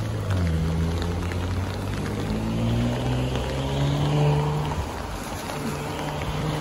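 A car engine running nearby, its low hum slowly rising in pitch and then easing off about five seconds in, over the steady hiss of rain on wet pavement.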